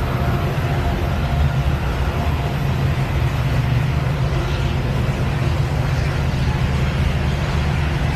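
Freight train of loaded coal hopper cars rolling past: a steady, loud low rumble of steel wheels on the rails.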